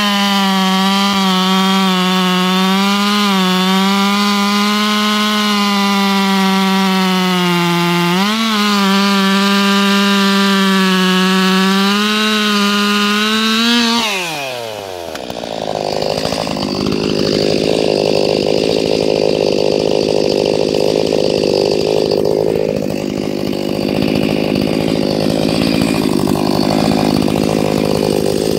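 Ported Stihl MS361 two-stroke chainsaw with a 24-inch bar and 33RS84 chain cutting through a big oak round at full throttle, its pitch sagging slightly under load a couple of times. About halfway through, the throttle is let off, the engine winds down quickly, and it runs at idle for the rest.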